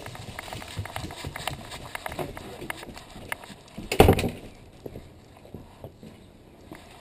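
Handling noise from a camera strapped to a moving dog's chest: quick clicks, footfalls and fur rubbing against the housing, with a loud thump about four seconds in; quieter after that.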